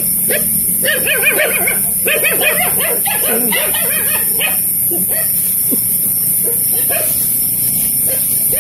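A small dog yapping in a quick run of short yips for a few seconds, then a few single yips, over a steady high hiss.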